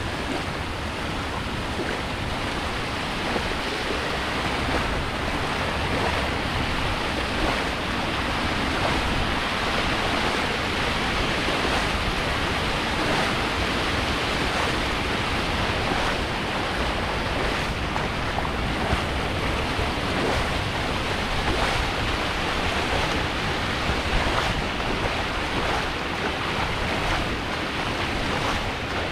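Steady rush of moving water, with wind buffeting the microphone as a low, uneven rumble.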